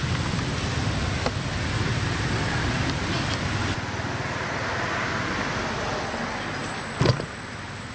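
Steady outdoor background noise with a low rumble that drops away partway through, a thin high whine held throughout, and a single sharp knock about seven seconds in.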